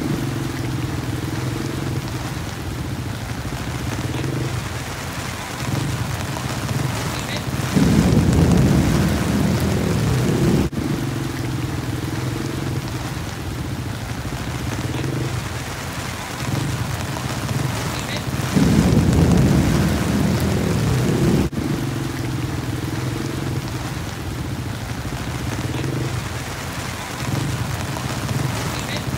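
Steady heavy rain with low droning tones underneath and a deep rumble of thunder about eight seconds in and again near eighteen seconds. The same stretch of sound repeats about every eleven seconds, like a looped rain-and-thunder track.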